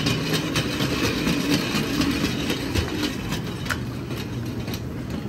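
Small wire shopping trolley rolling over a tiled floor, its wheels and wire basket rattling with a steady run of irregular clicks.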